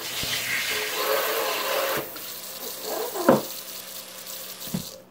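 Kitchen sink sprayer hissing water into a stainless-steel sink for about two seconds, then the faucet running in a softer steady stream. Two knocks come against the sink, about three seconds in and near the end, and the water cuts off at the end.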